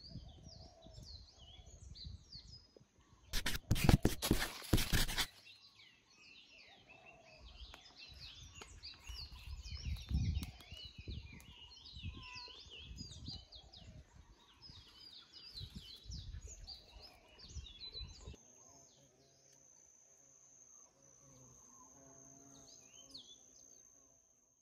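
Many birds chirping and whistling together in forest undergrowth, with irregular low rumbles. A loud noisy burst cuts in about three and a half seconds in and lasts under two seconds. From about eighteen seconds on, the chirping thins out and a steady high-pitched buzz holds to near the end.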